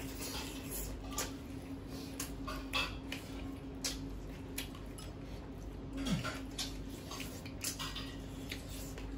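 Eating sounds: scattered wet clicks and smacks of chewing fish head and of fingers working food against stainless steel plates, over a steady low hum.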